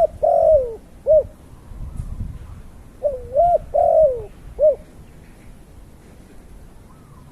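A dove or pigeon cooing: a three-note phrase of rising and falling coos, given twice about three seconds apart.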